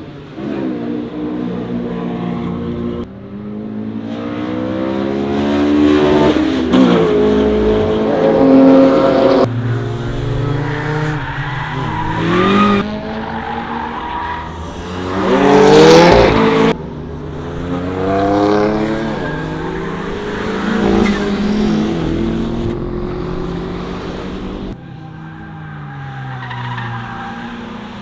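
Car engine revving hard and dropping back again and again through gear changes at track speed, with tyre squeal. The sound changes abruptly several times.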